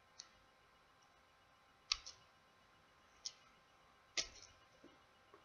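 Faint, scattered clicks and taps of small tools against the plastic parts of a Huawei Ascend G300 smartphone being pried apart near its stuck power button. There are about five clicks, the sharpest about two and four seconds in.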